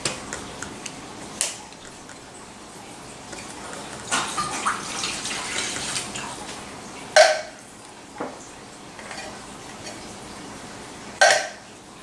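Hand can opener and a can of chicken broth being worked, with a splashing pour of liquid for about two seconds some four seconds in and a few sharp metallic knocks of can and pan, the loudest two near the middle and near the end.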